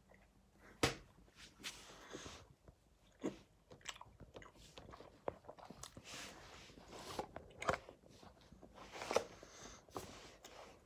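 Irregular crunching and crackling close to the microphone from a person handling and eating a snack, with two louder crunches, about a second in and near the end.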